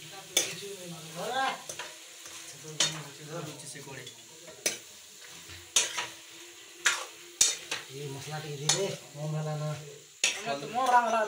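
Metal spoon stirring food frying in a kadai: several sharp clanks and scrapes of the spoon against the metal pan, irregularly spaced, over a light frying sizzle.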